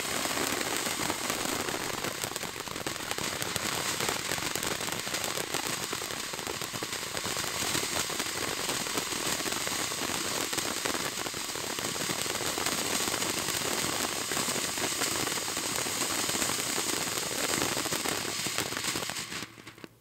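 Great Grizzly Green Apple fountain firework spraying sparks: a steady hiss thick with fine crackling. It drops away near the end as the fountain burns out.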